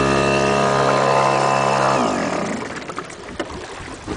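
Boat motor running steadily, then shut off about two seconds in, its pitch sliding down as it winds to a stop. After that only a quieter hiss with a few light knocks remains.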